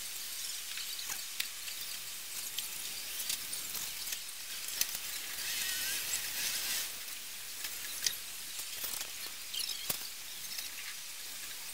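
Steady hiss of outdoor background noise, with scattered faint clicks and crackles at irregular moments and a slightly louder patch of hiss near the middle.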